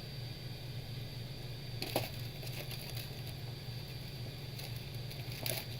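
Steady low electrical hum, with a couple of short sharp clicks about two seconds in and again near the end.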